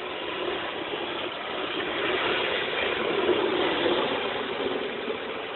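Radio-controlled drift cars running on asphalt: a steady motor and gear whine with tyre scrub, growing louder about halfway through as one car passes close by.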